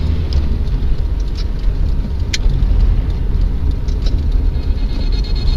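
A car on the move: a steady low rumble of engine and road noise, with one short sharp click a little under halfway through.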